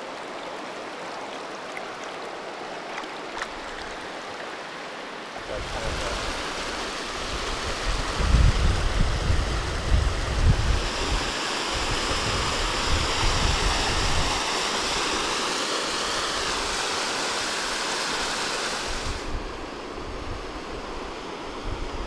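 A river running over boulders. It starts as a steady, softer rush of water. About five seconds in, the louder rush of whitewater rapids takes over, with wind buffeting the microphone, and it eases a little near the end.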